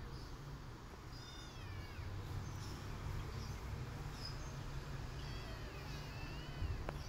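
Kittens mewing: a few high, thin calls that glide in pitch, the longest and most wavering one about five seconds in.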